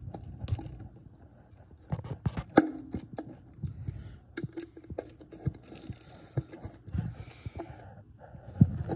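Hand screwdriver tightening the screws that hold a blade bracket onto a ceiling fan's motor housing, with scattered clicks and small knocks of metal and plastic parts being handled.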